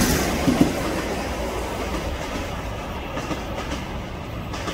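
Metro-North M8 electric multiple-unit commuter train passing and pulling away, its wheels clicking over the rail joints as the sound fades with the last car going by.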